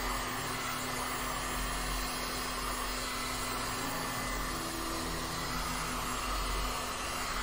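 Electric heat gun running steadily, a continuous rush of blown air over a faint low hum. It is blowing across wet epoxy resin to spread the white resin into lacy ocean-wave cells.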